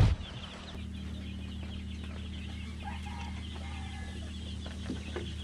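Poultry in a pen: chickens clucking, with many short high calls from the flock and a lower call near the middle. A steady low hum runs underneath.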